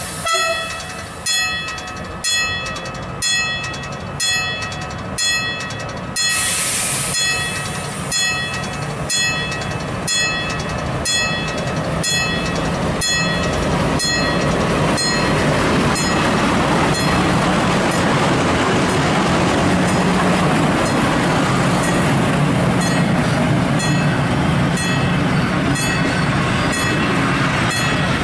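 A level-crossing bell rings about once a second. There is a brief hiss about six seconds in. From about twelve seconds in, a diesel locomotive pulling away with its passenger coaches passes close by, and its engine and wheels grow into a steady loud rumble that covers the bell.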